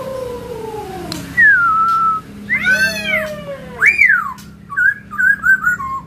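Black-throated laughingthrush (Poksai Hongkong) in full song. It gives long falling whistles, then meow-like calls mimicking a cat about halfway through, a rising-and-falling whistled sweep, and short chirping notes near the end.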